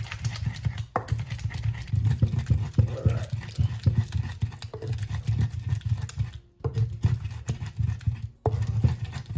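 Wooden tapoli pestle grinding wet tomato, onion and pepper in a clay asanka bowl, with rapid repeated knocks and rubs of wood on earthenware. It breaks off twice briefly near the end.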